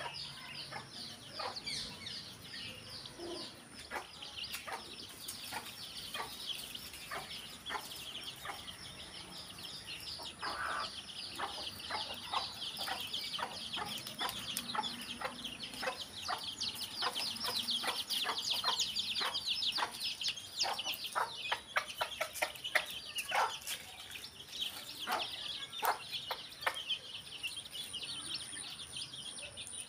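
A flock of two-day-old chicks peeping without pause in rapid, high-pitched cheeps, with a hen's short clucks now and then.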